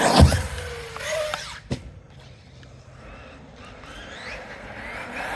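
Electric RC monster truck (a Traxxas X-Maxx on a 6S battery) launched off a jump: its motor is at full throttle and then drops sharply in pitch about a quarter second in, and a single sharp knock follows about 1.7 seconds in. The motor whine builds again near the end.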